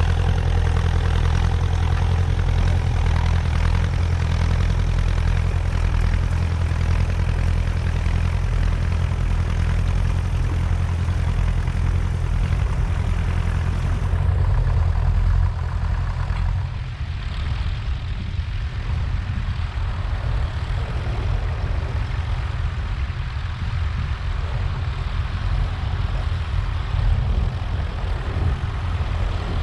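Tractor engine running steadily while ploughing; about half-way through it becomes a little quieter.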